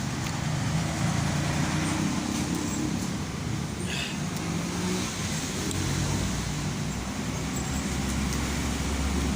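Steady low engine rumble, like motor traffic or a running engine nearby, holding an even level throughout.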